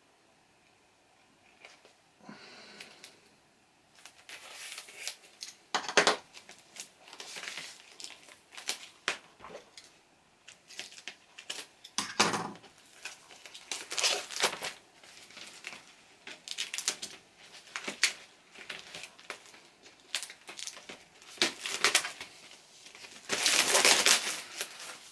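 Clear plastic sleeve of a vinyl LP crinkling and rustling as the record is handled and slid out of it, in irregular bursts, loudest near the end.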